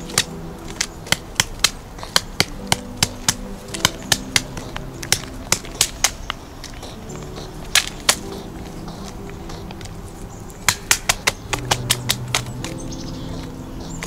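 Pileated woodpecker pecking and chiselling at a rotting log for food: sharp, irregular taps, coming in quick runs, with a fast flurry about eleven seconds in. Soft background music plays under the taps.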